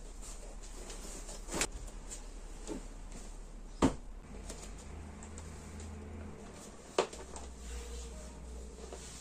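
Things being picked up and set down on a wooden floor: three sharp knocks, the loudest about four seconds in, with soft handling and rustling between and a low steady hum underneath.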